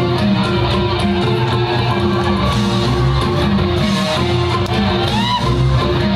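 A live rock band plays through the PA: electric guitars, bass and drums. A brief rising-and-falling sliding note comes about five seconds in.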